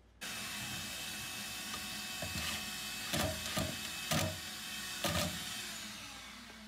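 A power tool's electric motor running steadily, with a few sharp knocks against wood in the middle. It winds down with a falling tone near the end.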